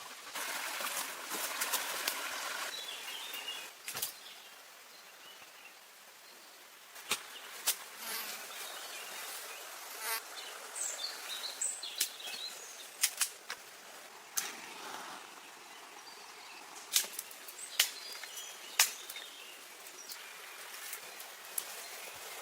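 Irregular sharp knocks and snaps, a dozen or so spread across the stretch, over a quiet outdoor background with small birds chirping now and then. A rushing hiss fills the first few seconds.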